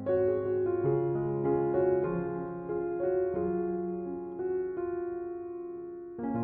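Slow, calm relaxation music on piano: sustained chords with single melody notes over them, a new chord struck at the start and again near the end, the bass changing every couple of seconds.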